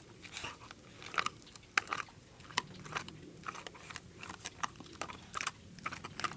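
A beagle gnawing on a chew treat: irregular crunches and clicks of teeth on the chew, about one or two a second.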